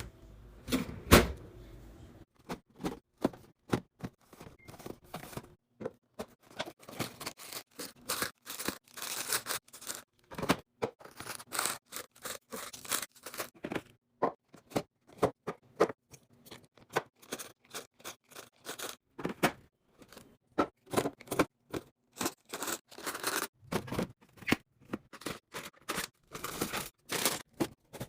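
Groceries being handled and put away in a fridge: plastic packaging crinkling and tearing, with a quick run of taps and clicks as items are set down. There is a louder knock about a second in.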